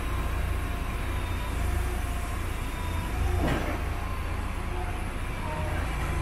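Forklift engine running with a steady low rumble and a faint wavering whine while lowering a bundle of OSB sheathing panels onto a flatbed trailer. A single thump about three and a half seconds in as the load settles onto the lumber bunks.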